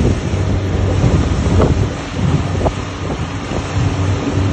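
A motorboat's engine running steadily under way, with wind buffeting the microphone and water rushing past.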